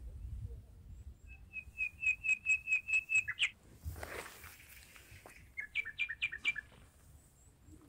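Wild bird calling from the trees: a quick run of about ten sharp, evenly repeated notes, then a second, shorter run of about five notes that step between two pitches. Between the runs there is a brief rush of noise.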